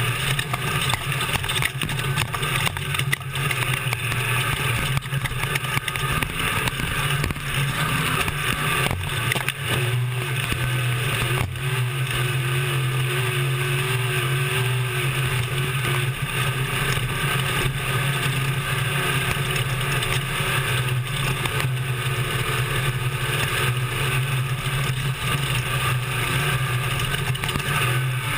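Desert race truck's engine running steadily at speed, heard from inside the cab. Frequent short knocks and rattles come from the truck jolting over rough ground.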